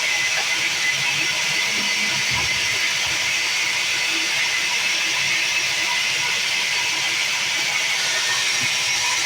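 Sawmill saw running through timber, giving a steady hissing cutting noise that holds at one level throughout.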